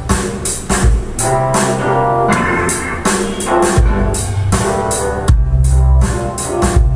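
A song with drum kit and guitar played back through a home-built 7.2-channel surround amplifier and its speakers, with strong bass from the subwoofer.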